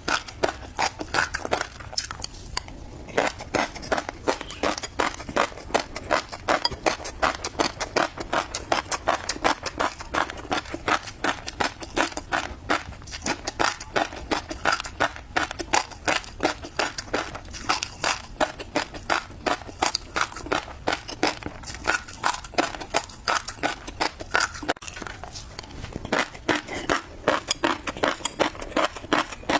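Close-miked chewing of tobiko (flying fish roe): a steady stream of small crunchy pops and clicks, several a second, with a brief lull about two seconds in.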